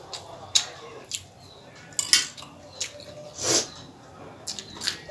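Eating utensil clinking and scraping on a plate in short, sharp strikes several times while eating noodles, with one longer noise about three and a half seconds in.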